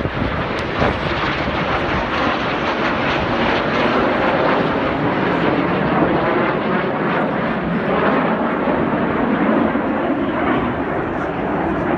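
Display aircraft engines running overhead: a loud, steady rushing drone without a break.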